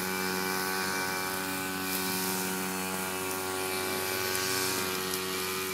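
A steady machine hum at one unchanging pitch.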